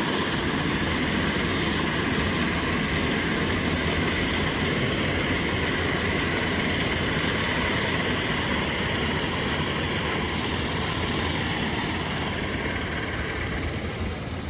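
Heavy machinery running steadily in a dense, even din with a strong low rumble, easing off slightly near the end.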